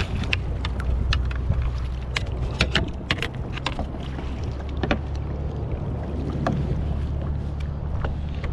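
Steady low wind rumble on the microphone and water lapping against a kayak, with scattered sharp clicks and knocks over the first five seconds or so.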